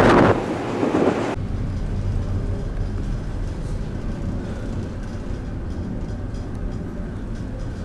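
Wind buffeting the microphone on a ferry's open deck, cut off abruptly about a second in. A steady low drone of the ship's machinery inside the ferry follows, with a few faint ticks near the end.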